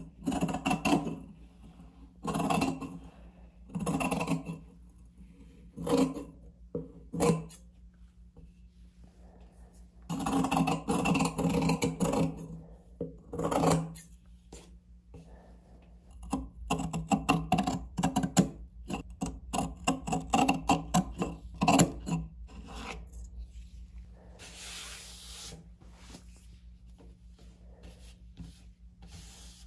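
Scissors cutting a patch of woven fiberglass cloth to size, in bursts of snips with a quick run of short cuts in the latter half, and the cloth rubbing as it is handled and pressed flat by hand. A faint steady low hum sits underneath.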